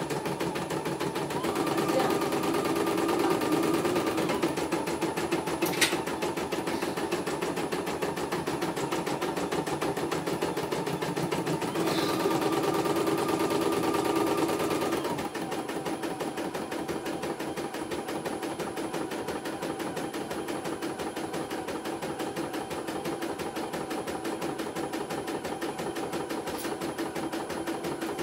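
CNY E900 computerised embroidery machine stitching a test design, its needle hammering at a rapid, even rate. It runs louder for a few seconds about two seconds in and again from about twelve to fifteen seconds, with one sharp click about six seconds in.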